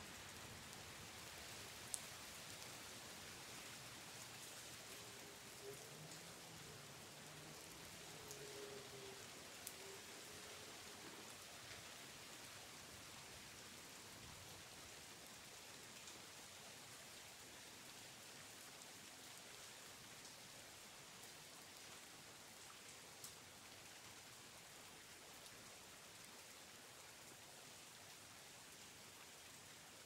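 Exterior rain ambience in a residential area: a soft, steady hiss of falling rain with a few sharp single drop ticks standing out.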